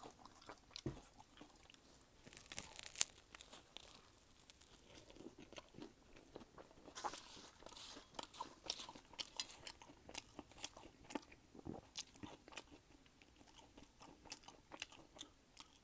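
Close-miked chewing of crunchy food with the mouth open: repeated wet crackles and crunches, heaviest twice, about 3 seconds in and again about 7 seconds in.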